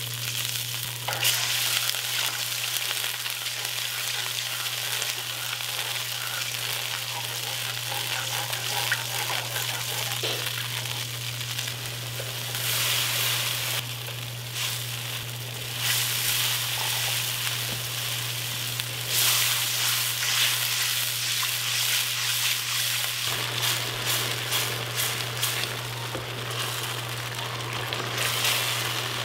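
Sauce sizzling in a wok of hot oil as liquids such as soy sauce and orange juice are poured in and stirred: a steady frying hiss that swells louder in stretches, over a steady low hum.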